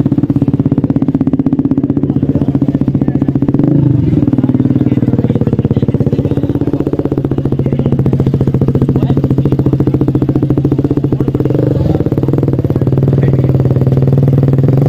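TVS Apache RR 310 motorcycle's single-cylinder engine revved hard and held at steady revs during a burnout, with its rear tyre spinning on the asphalt. The revs dip briefly about four seconds in and again about twelve seconds in.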